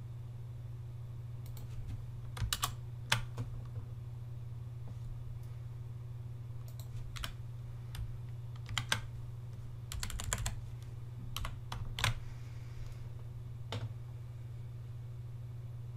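Computer keyboard typing in short, sparse bursts: single keystrokes and small clusters with pauses between, over a steady low hum.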